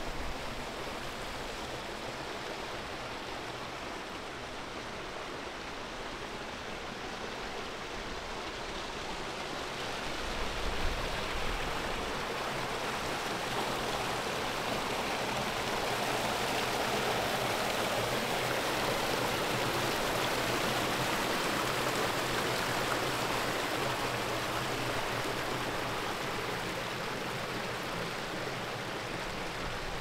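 Water rushing over the rocks of a moorland brook, a steady hiss that swells from about a third of the way in, is loudest around the middle, and eases a little near the end. A few low bumps come about a third of the way in.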